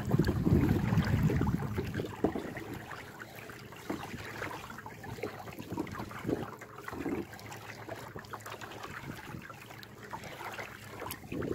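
Water splashing and trickling around a kayak as it is paddled, small irregular splashes and drips. Wind buffets the microphone for the first second or two.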